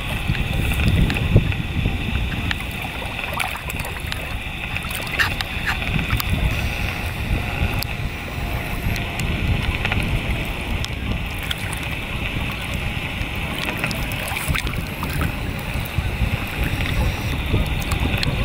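Steady rush of wind on the microphone and choppy river water splashing close by, aboard a 1993 Kawasaki 650SX stand-up jet ski.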